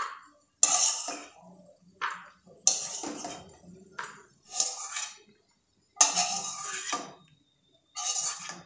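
A steel spoon scraping and clinking in a kadhai as fried peanuts are scooped out and tipped into a steel bowl, a scoop about every second, with a longer scrape a little past the middle.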